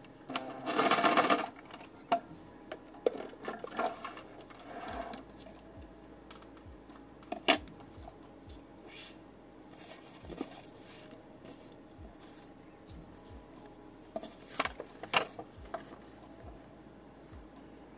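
Electric sewing machine running briefly, for about a second near the start. Then quiet paper handling: rustling, light taps and clicks as sheets are arranged and slid under the presser foot, with a couple of sharper clicks, one about halfway through and one near the end.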